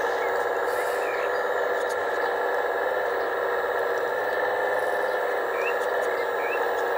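Steady whine of a radio-controlled scale rail excavator's electric hydraulic pump running while its arm and attachment work, holding one even pitch throughout. A few faint short high chirps sound over it.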